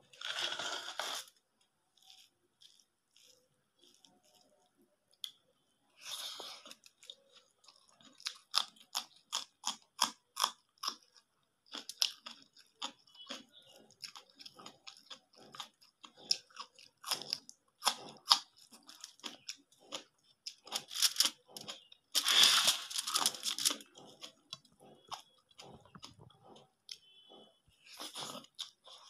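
Close-miked eating sounds: crisp crunching and chewing in runs of rapid crackly crunches, with louder, longer crunches at the start, about six seconds in, around two-thirds of the way through and near the end.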